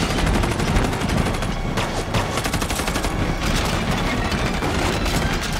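Rapid, continuous gunfire in a film action-scene soundtrack, many shots packed close together without a break.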